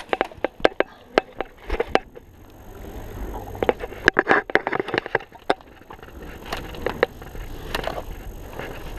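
Airsoft gas guns firing semi-auto with BB hits: scattered, irregular sharp cracks and clacks, busiest near the middle, over rustling movement.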